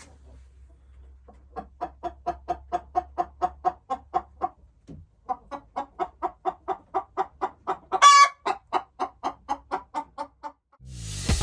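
A chicken clucking in a rapid, steady run of about five clucks a second, with one louder, higher squawk partway through. Music starts near the end.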